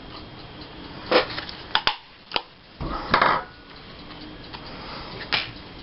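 A few scattered knocks and rustles of craft supplies being handled and set down on a tabletop, about five in all, the loudest a short clatter about three seconds in.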